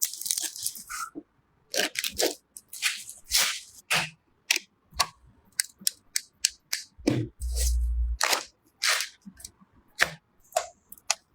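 Quick series of sharp clicks, snaps and short scrapes of computer parts being handled and fitted together during a PC build, with a brief low hum about seven seconds in.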